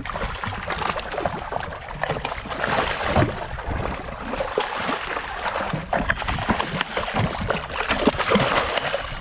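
Water sloshing and splashing against the side of a small boat as a hooked fish is reeled up, with a busy run of short splashes and slaps. Near the end the hooked flathead thrashes at the surface beside the hull.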